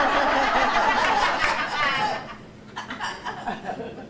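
Audience laughing, a dense burst that dies down a little over two seconds in, followed by a few scattered laughs and voices.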